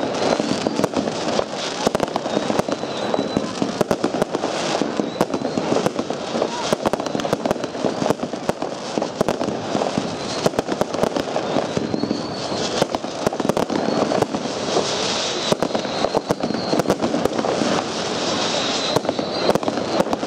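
Dynasty Mayday consumer firework cake firing shot after shot. It makes a dense, irregular run of sharp launch and burst reports that goes on without a break.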